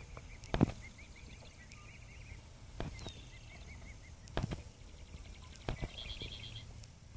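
Birds chirping in runs of quick, high, repeated notes, with a short fast rattling trill about six seconds in. Five sudden knocks or bumps stand out as the loudest sounds.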